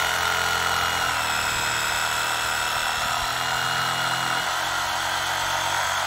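Cordless reciprocating saw running steadily at full speed, its blade sawing through a tree root in the soil: a steady motor whine over the rasp of the cutting blade.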